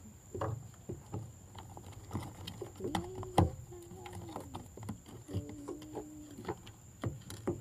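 Plastic spoons stirring slime in bowls, a string of irregular clicks and knocks against the bowls. A quiet voice is heard between the clicks.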